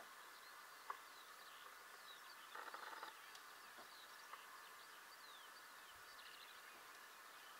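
Faint, distant black grouse lekking: a steady bubbling murmur, with one louder hissing call lasting about half a second, roughly two and a half seconds in. Small songbirds chirp faintly above it.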